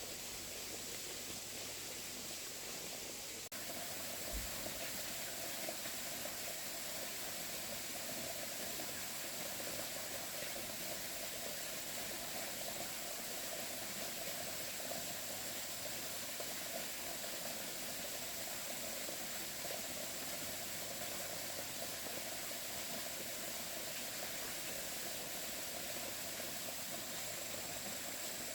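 Steady hissing noise with a thin, high, constant whine above it; the sound changes abruptly about three and a half seconds in, and a fuller mid-pitched rushing joins it from then on.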